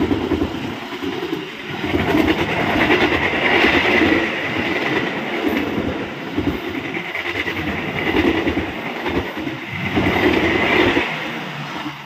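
Coaches of a long-distance passenger train passing close by at high speed, wheels clattering over the rails in a steady rumble. It fades away near the end as the last coach goes past.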